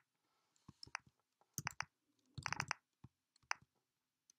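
Computer keyboard keys being typed: a sparse, irregular run of faint clicks, some single and some in quick clusters, as a command is entered one key at a time.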